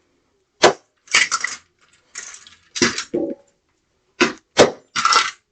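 Broken hard-plastic pieces of a smashed toy vacuum cleaner clattering and knocking together as they are handled and tossed into a bin: a run of short sharp knocks and rattles, with a cluster near the end.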